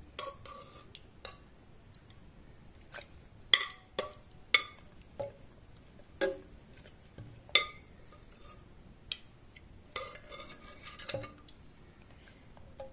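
A spoon clinking and knocking against a pressure cooker and a mixer-grinder jar as cooked tomatoes are scooped into the jar: about ten sharp, separate clinks spread unevenly, a second or so apart.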